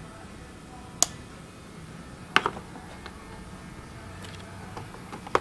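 Sharp snips of hand side cutters cutting plastic on a car's wiring harness: one about a second in, a quick pair a little later, and one more near the end, over a low steady shop hum.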